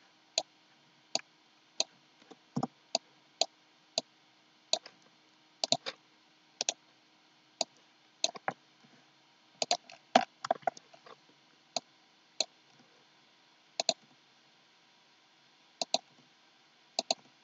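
Computer mouse and keyboard clicks, short and sharp, coming irregularly every half second or so, some in quick pairs.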